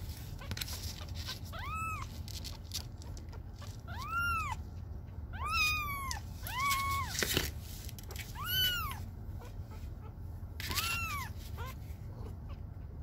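Young kitten mewing repeatedly, about six thin, high mews, each rising and falling, while it is held down for claw clipping. A few sharp clicks fall between the calls.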